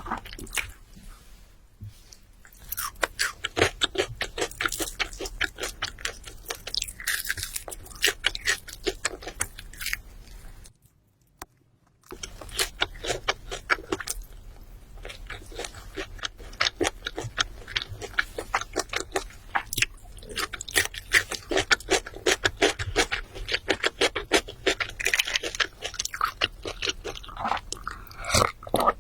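Close-miked chewing and crunching of food, a rapid irregular crackle of bites and chews, broken by a second of silence about eleven seconds in.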